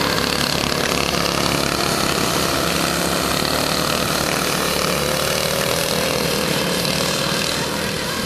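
Snowmobile engine running steadily, with a slight waver in pitch in the second half.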